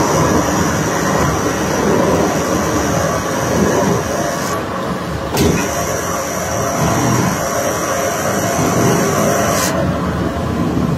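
Heavy unloading machinery's engine running steadily, with a thin high whine that cuts out about four and a half seconds in, comes back a second later and stops again near the end.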